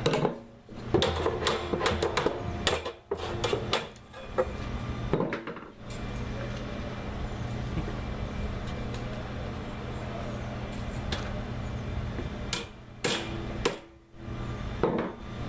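Irregular knocks and clanks of a steel barrel hoop and cooper's tools handled against an oak barrel: a cluster in the first few seconds and a couple more near the end, over a steady low hum.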